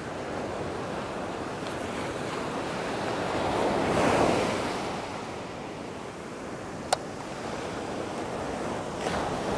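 Ocean surf breaking and washing up the sand, one wave swelling to a peak about four seconds in and then easing off. A single sharp click about seven seconds in.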